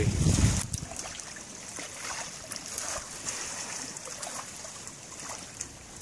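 Wind buffeting the microphone with a low rumble for the first half-second or so, then a quieter steady hiss of wind over choppy water with faint small splashes of ripples.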